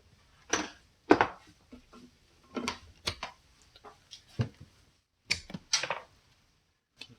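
Irregular knocks and clinks of metal tool parts being handled, about a dozen over several seconds, a few with a short ring. The parts are a 1/4-inch ratchet that has just snapped off under torque.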